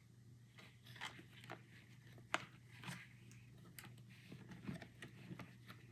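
Faint scattered scrapes and taps of a cardboard box being handled and set in place, with one sharp click a little past two seconds in.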